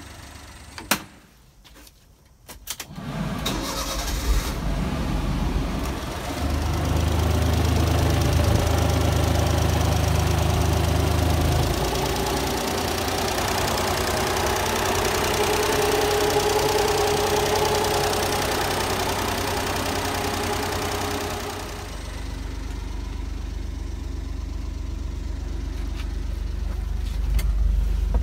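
Honda Acty kei truck's engine starting about three seconds in, after a few clicks, then idling steadily.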